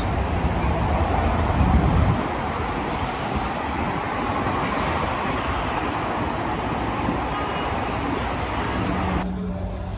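Steady city traffic noise, an even roar of passing road vehicles, a little louder for a moment in the first two seconds. Near the end it cuts abruptly to a quieter background with a steady low hum.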